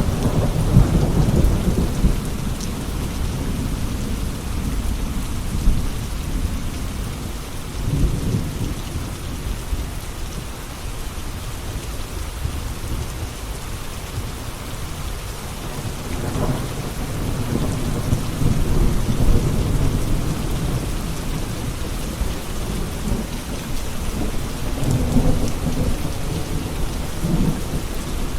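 Steady heavy rain with low rolling thunder that swells and fades several times.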